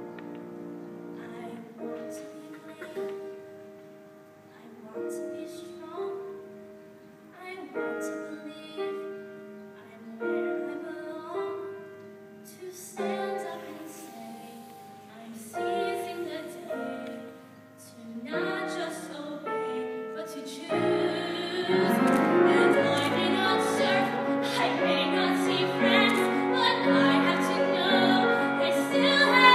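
A young girl singing solo with piano accompaniment, in a classical, recital style. The music is softer for about the first twenty seconds, then grows louder and fuller.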